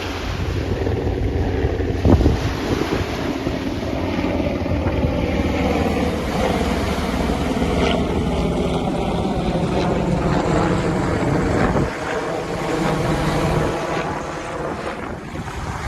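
A motor droning as it passes, its hum bending slightly in pitch and easing off about twelve seconds in, over gusting wind on the microphone.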